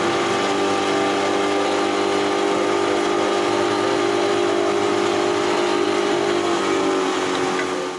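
Outboard motor of a small fishing boat running flat out at full speed: a steady engine drone over an even hiss.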